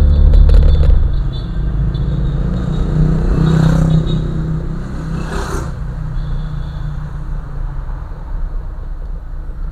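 A car driving, with a loud, steady low rumble from engine and road that is heaviest in the first second. Midway, two brief swells of noise come a second or so apart.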